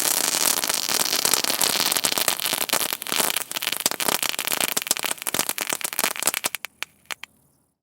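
Firework crackles: a dense, rapid crackling that thins out after about five seconds into scattered sharp pops, the last few snapping singly before it stops.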